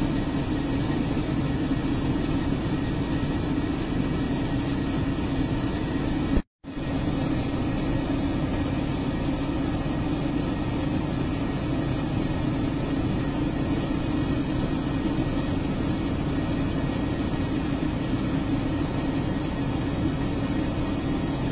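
Laser back-glass removal machine running with a steady hum while it lasers off the broken iPhone back glass. The sound cuts out for a moment about six and a half seconds in.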